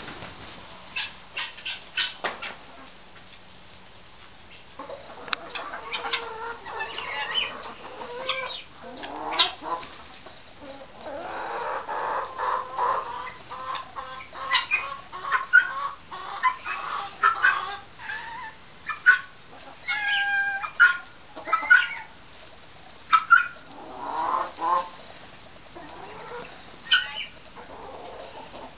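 Flock of chickens clucking and squawking, short calls coming again and again from about five seconds in. A run of sharp clicks or taps comes in the first few seconds, before the clucking.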